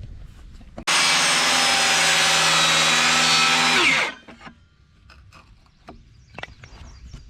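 Electric power saw cutting a wooden rafter. It starts abruptly about a second in, runs steadily for about three seconds, then winds down with a falling pitch. A few light knocks follow.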